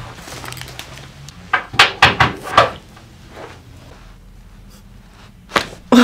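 Chiropractic adjustments: a quick run of four or five sharp cracks and knocks about two seconds in, then two more near the end as the neck is adjusted.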